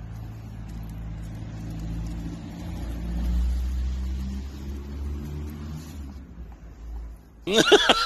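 A car engine running close by: a low steady hum that grows louder around the middle and then fades. Near the end it cuts off and a loud laughing voice starts.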